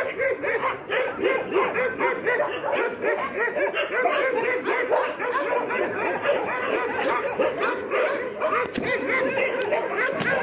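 A group of puppies whining and yelping together, many short overlapping cries without a break.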